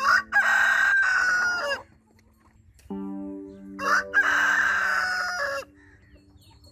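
A rooster crowing twice, each crow a little under two seconds long, with a long held note that drops slightly at the end. Steady musical notes sound underneath before and between the crows.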